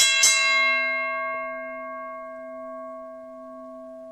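A deep bell struck a second time just after the start, then ringing out in a long, slow fade with several overtones sounding together.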